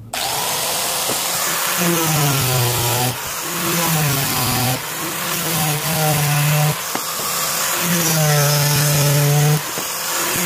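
Angle grinder fitted with a sanding drum running while a piece of coconut shell is pressed against it and sanded. The motor's pitch sags each time the shell is pushed onto the drum, over about five passes with short letups between them.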